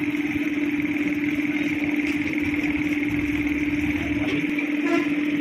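A machine running steadily in the background, a constant unchanging hum like an idling engine or motor. A few light ticks come near the end.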